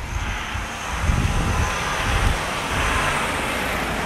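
A pickup truck driving past close by, its engine and tyre noise swelling to a peak about three seconds in and then easing off.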